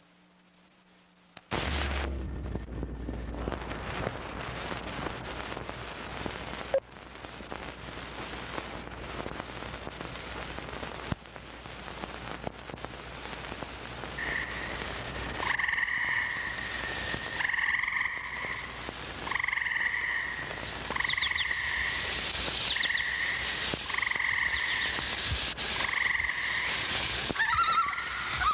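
Frogs calling from about halfway in, a pulsed trill repeated roughly every second, with a few higher chirps near the end. Underneath is a steady hiss and low hum that cut in suddenly about a second and a half in.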